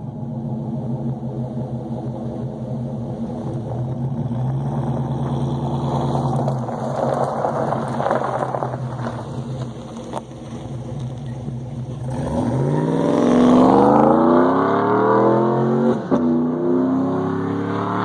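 Exhaust of a 2015 Chevrolet Silverado's 5.3 L V8, fitted with Kooks long-tube headers and a Jones JT3030 turbine muffler, running at a steady idle, then, about two-thirds of the way through, taking off hard with the note climbing steeply in pitch. Near the end there is a short break as it shifts gear, and then it climbs again.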